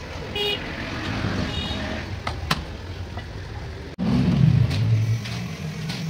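Background street traffic: a couple of short vehicle horn toots and two sharp clicks, then, after a cut about four seconds in, a louder low engine rumble.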